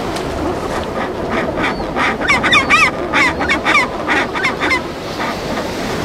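Recorded penguin calls: a quick run of short, honking, braying calls that is densest about two to three seconds in and fades out near the end, over a steady wash of background noise.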